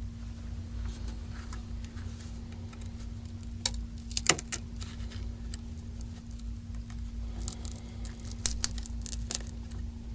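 Scattered light clicks and scrapes of a pick prying under a Samsung Galaxy S3's screen. The screen is held down by strong adhesive. A steady low hum runs underneath.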